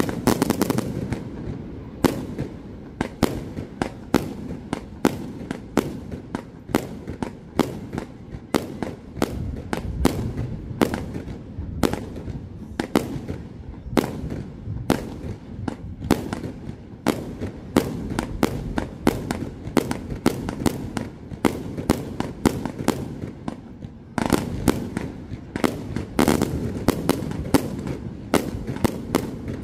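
Fireworks display: a rapid, continuous run of bangs and crackles, several a second, over a low rumble, growing denser and heavier near the end.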